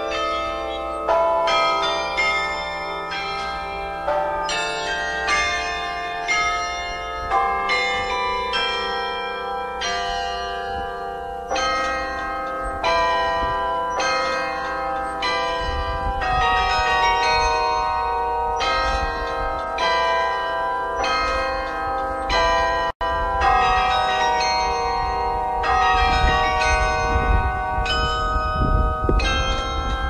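Carillon bells struck in quick succession, playing a tune, each note ringing on under the next. From about halfway through, a low rumble sits beneath the bells, and there is a momentary break near the end.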